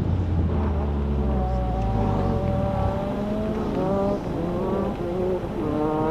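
Car engine at low revs as the car brakes hard and rolls slowly, the low drone fading about halfway through. A wavering higher-pitched tone runs over it from about a second in.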